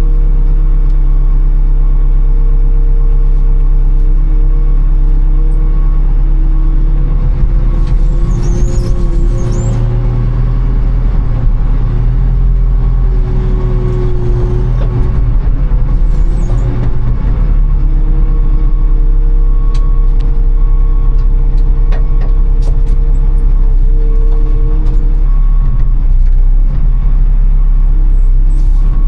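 Diesel engine of a SkyTrak telehandler running steadily under load as it moves a trailer full of steel, somewhat rougher and busier for several seconds in the middle.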